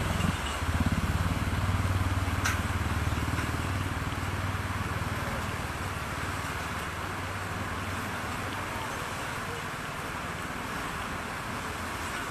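Flooded Trishuli River in monsoon spate, a steady rushing roar of fast water, with a low hum under it through the first half that fades away, and one short click about two and a half seconds in.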